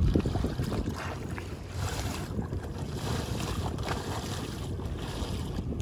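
Wind buffeting the microphone over water rushing and splashing past the hull of a small sailboat under sail, with a heavy low rumble from the wind near the start.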